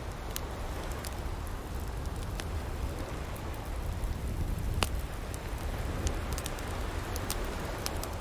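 Bonfire crackling with scattered sharp pops, one louder pop about five seconds in, over the steady wash of ocean waves on the shore.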